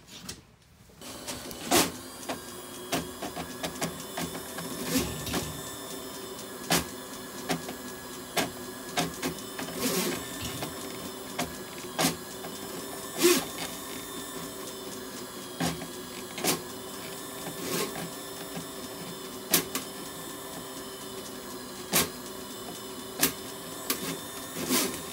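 Electric flexible-shaft drain rodder running steadily, its spinning steel cable clattering in the floor drain with irregular sharp knocks; the cable is working through a heavy grease blockage. The machine starts about a second in.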